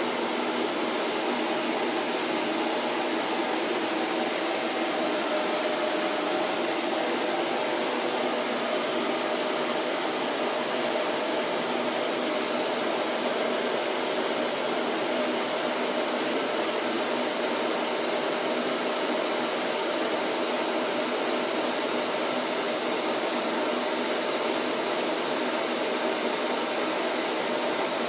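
Vacuum cleaner running steadily: a continuous, unchanging motor whir and rush of air.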